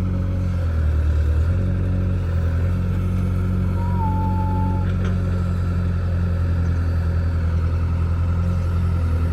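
Heavy diesel engine of a backhoe loader and tractor running steadily with a deep, even drone, its pitch shifting briefly about a second in. A brief thin whistle sounds near the middle.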